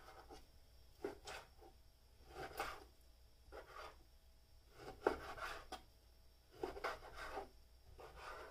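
Chef's knife cutting through raw pork shoulder and tapping the cutting board: a dozen or so faint, short strokes at an uneven pace.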